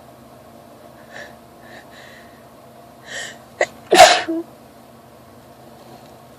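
A woman sneezes once, loudly, about four seconds in, after a few short catching breaths as the sneeze builds. It is an allergy sneeze in the middle of a sneezing fit.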